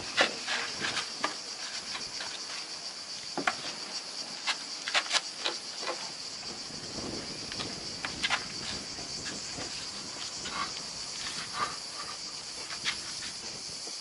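Steady high-pitched drone of cicadas, with scattered sharp clicks and knocks from the rudder blade being handled under the hull.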